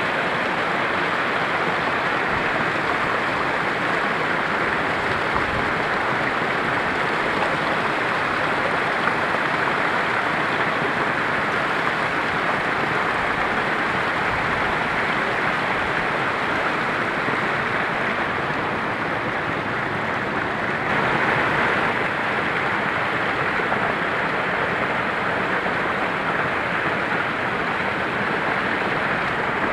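Rushing water of a small mountain-river cascade pouring into a pool, a steady close rush that swells slightly about two-thirds of the way through.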